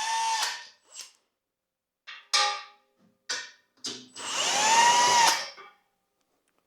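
Power drill run in a series of trigger pulls: short blips, then a longer run near the end whose pitch rises as the motor spins up and falls as it winds down.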